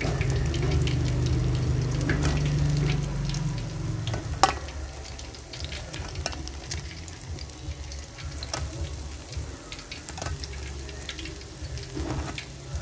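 Batter-coated eggplant and pork rolls deep-frying in hot oil with a steady sizzle, louder for the first three seconds or so, with a few sharp clicks of utensils against the aluminium pan as the rolls are lifted out.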